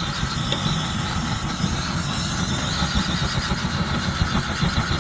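Swiss army petrol stove burning while it preheats, its fuel tap not yet opened: a steady low, fluttering rumble of flame.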